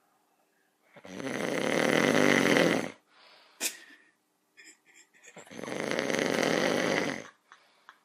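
A sleeping person snoring loudly: two long, rattling snores, each about two seconds long and building in loudness, about four seconds apart.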